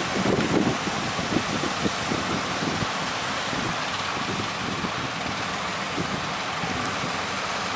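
Strong wind gusting on the microphone over a steady wash of sea surf.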